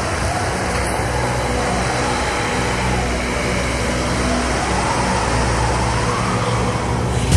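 Trailer sound-design drone: a steady, dense low rumble with held low notes and a thin tone that slowly rises and falls above it.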